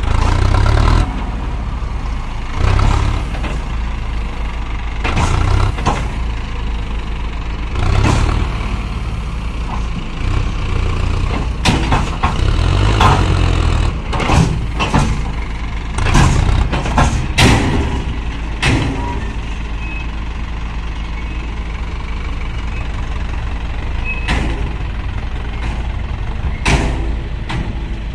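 Heavy diesel machinery running steadily, a JCB backhoe loader working with farm tractors, with brief louder bursts every few seconds, thickest about halfway through.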